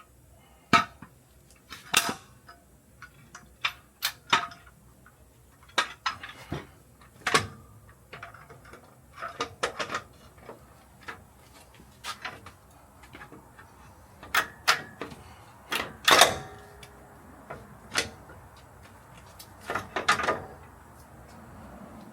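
Irregular metallic clanks and clinks of tools and metal parts being handled and set down, some of them ringing briefly; the loudest comes about two-thirds of the way through.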